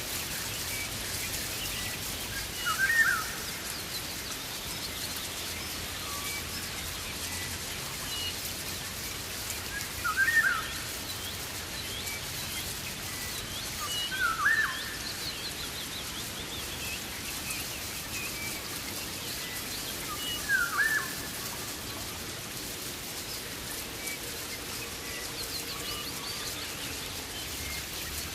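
Steady rain falling in a rainforest, with a bird calling loudly four times, several seconds apart, each call a quick cluster of sliding notes, and fainter higher chirps from other birds in between.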